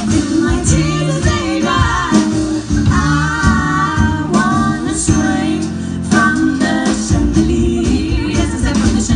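Three women singing close harmony live, backed by a small band with guitar.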